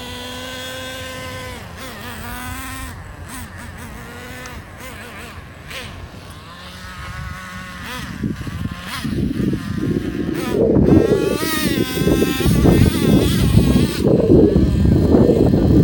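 Traxxas Revo RC truck's small nitro engine running at a steady high pitch for the first couple of seconds, then revving up and down as the truck is driven. From about eight seconds in, a rough low rumble grows much louder under the engine tone.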